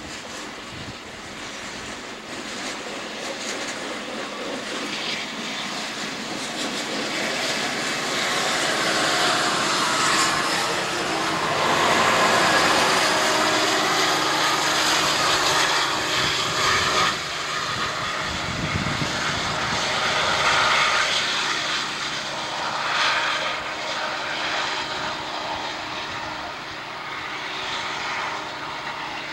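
Southern Pacific diesel locomotive 8276, the rear helper shoving a freight up a steep 2.2% grade, passing close with its engine working hard. The engine sound builds as it approaches, is loudest as it goes by, then eases off.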